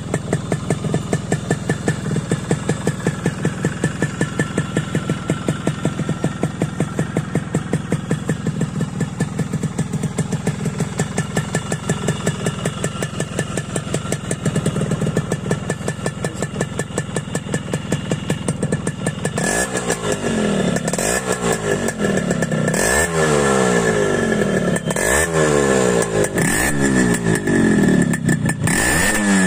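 Yamaha RX100's two-stroke single-cylinder engine idling steadily, then revved in a run of repeated quick throttle blips from about two-thirds of the way in.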